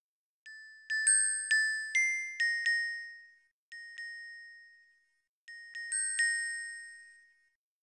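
Glockenspiel sound from notation-software playback playing the melody: a quick phrase of seven struck notes, a single note about a second later, then four more, each ringing and fading away.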